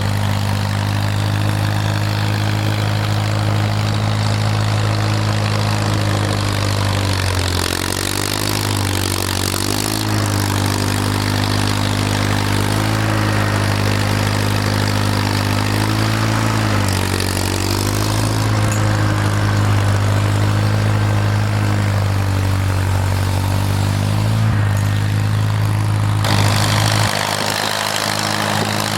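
Snowblower engine running steadily, its pitch dipping briefly and recovering several times as it works under load. Near the end the deepest part of the hum drops away.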